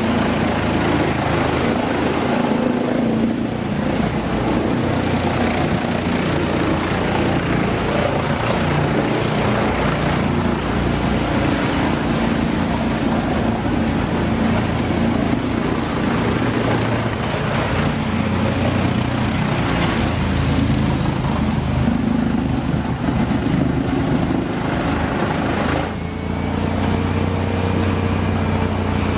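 Engine of heavy wood-processing machinery running steadily under load, with a noisy grinding haze over its hum. About 26 s in the sound dips briefly and carries on as a smoother, steadier engine drone.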